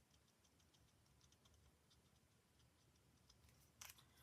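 Near silence with faint, irregular light taps of colour being stippled onto card, and one louder click near the end.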